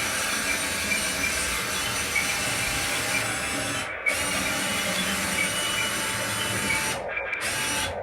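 Small electric motors and hydraulic pumps of radio-controlled excavators and trucks whirring steadily under load, cutting out briefly twice, about four seconds in and again near the end.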